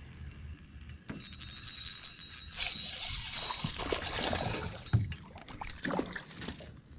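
A small hooked pike thrashing and splashing at the water's surface beside the boat, starting about a second in, with a run of sharp splashes and slaps near the end.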